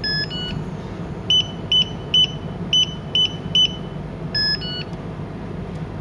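Yale YDD 1212 digital door lock's touchscreen keypad: a two-note falling chime as a palm wakes it, then six short high beeps about half a second apart as keys are pressed, and the same two-note chime again near the end.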